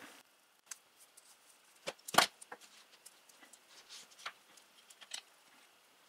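Electrical tape being pulled from the roll and wrapped around the end of a braided USB cable: a few scattered, sharp clicks and crackles, the loudest pair about two seconds in.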